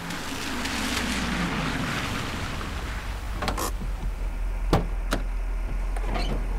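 A Mercedes-Benz sedan slowing to a stop, its road and engine noise dropping away, then the engine idling low. A few sharp clicks follow, and a car door opens near the end.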